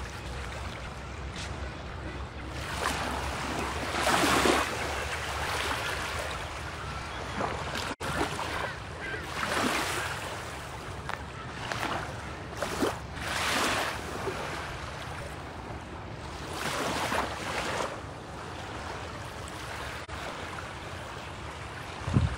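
Small waves washing up onto a sandy beach, a soft hiss that swells and falls back every few seconds, over a steady low rumble of wind on the microphone.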